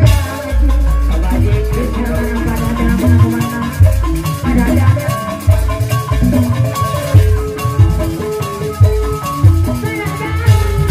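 Live Sundanese jaipongan music played bajidoran style: kendang hand drums beat out irregular deep strokes over ringing gamelan metallophones.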